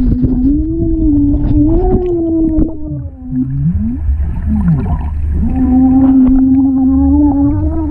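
A child's voice humming a steady tone underwater while blowing bubbles, heard muffled through the water, over a low watery rumble. The hum wavers a little in pitch, breaks off about three and a half seconds in with a few short sliding sounds, and comes back strongly about a second and a half later.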